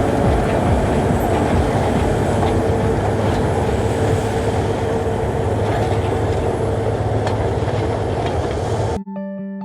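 Loud, steady rumble and clatter of a large John Deere articulated tractor working a field, with a faint held drone. It cuts off abruptly about nine seconds in, giving way to light chiming music.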